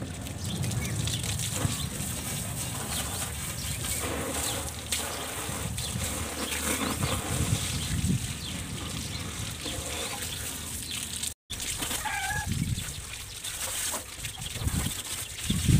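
Farmyard ambience: chickens clucking and small birds chirping over a steady rushing noise. The sound drops out completely for a moment about eleven seconds in.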